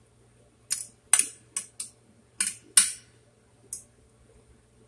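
Eating sounds: about seven short, sharp clicks and crunches, from a metal fork clinking on a plate as salad is speared and from crisp salad being chewed.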